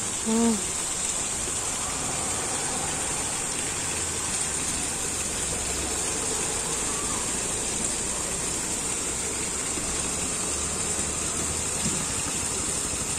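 Steady rushing of water from a fountain, with a brief voice just after the start.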